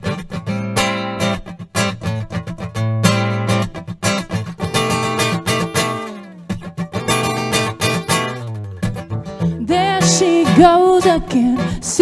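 Solo acoustic guitar played hard, fast strums and picked runs with sharp percussive attacks on the strings. A woman's singing voice comes in over the guitar about ten seconds in.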